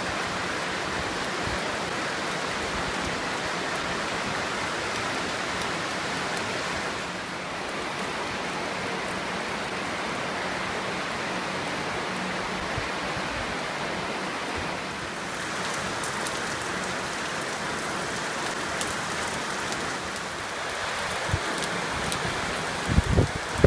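Steady hiss of heavy rain mixed with the rush of the flooding Smith River, an even noise with no breaks. A few low thumps come near the end.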